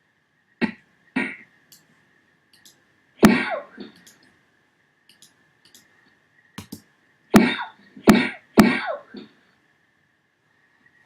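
Punch sound effects played back one after another: about seven short, sharp hits, each dying away quickly, at uneven intervals with three in quick succession near the end.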